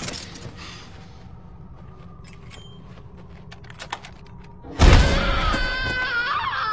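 Film sound effects: a quiet, low, dark drone with a few faint creaks and clicks, then a sudden loud crash about five seconds in, followed by high wavering tones.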